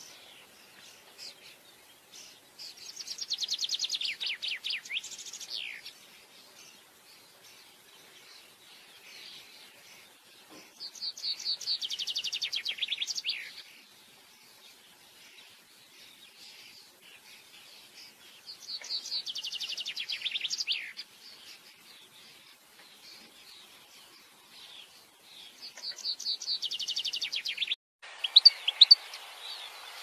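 Common chaffinch singing: four song phrases about seven seconds apart, each a fast trill of notes falling in pitch and ending in a short flourish. Near the end, after a brief break, a European goldfinch's quicker, jumbled twittering starts.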